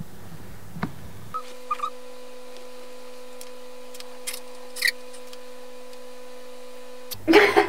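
Steady room noise with a low hum and a few faint, soft clicks.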